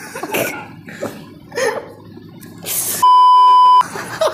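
A censor bleep, a steady high beep under a second long about three seconds in, with the audio muted beneath it. Around it are short shouts and laughter.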